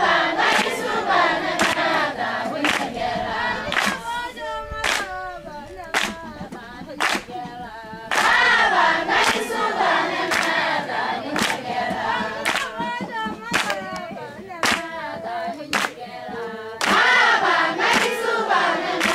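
A group of voices singing together with regular handclaps, about one clap a second. The singing thins to fewer, quieter voices a few seconds in and swells to the full group again around the middle and near the end.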